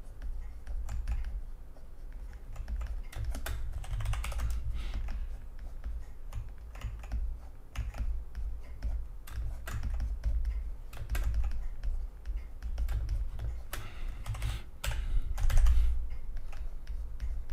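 Irregular clicking and tapping at a computer keyboard, with a low steady hum underneath.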